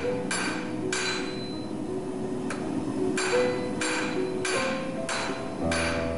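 Blacksmith's hammer striking a red-hot high-carbon rail spike on the anvil, forging it into a knife blade. About nine blows, roughly one every half-second, with a pause of about a second and a half after the first two.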